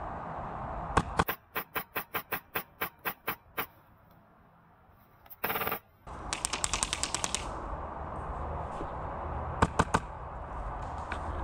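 Airsoft guns firing in a game: two sharp shots, then a steady run of about ten shots at roughly five a second, a brief hiss, a faster burst of about a dozen shots, and three quick shots near the end.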